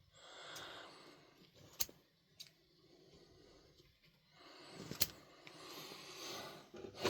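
Bevel-edge hair shears being handled and worked: faint rubbing, with three sharp metallic clicks at about two, two and a half and five seconds in.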